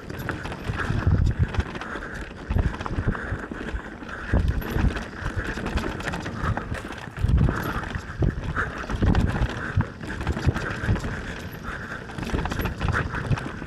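Mountain bike descending a rough, loose downhill trail: tyres running over dirt and rocks, the bike rattling and thudding irregularly over bumps.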